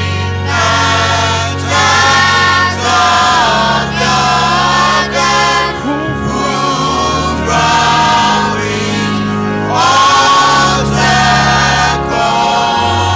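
A choir singing a gospel worship song, with sustained sung lines over steady held bass notes from the accompaniment.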